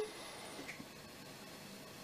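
Faint line hiss in the pause between rings of a telephone ringback tone, just after one ring cuts off. The call is ringing and has not yet been answered.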